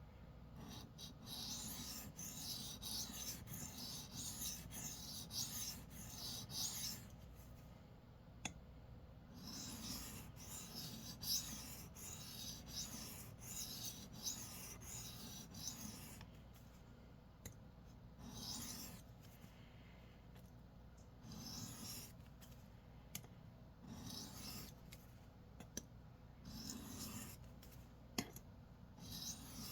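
Steel knife blade (Civivi Vision FG) stroked quickly back and forth on a sharpening stone, a rapid hissing scrape. Two long runs of fast strokes give way to shorter, scattered strokes in the second half. This is sharpening on a second stone after the edge has been apexed on both sides.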